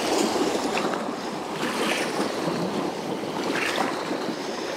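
Small waves washing over the stones at the water's edge, with wind blowing on the microphone. The wash swells a couple of times, about two seconds in and again near the end.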